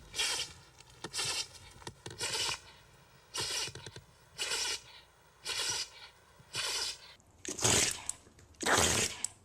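An animal sneezing over and over in short bursts, about one a second, then two louder, harsher sneezes near the end.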